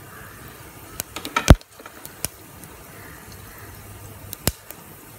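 Whole spices frying gently in coconut oil in an open pressure cooker, a soft steady sizzle. A few sharp knocks cut through it, the loudest about a second and a half in and another near the end.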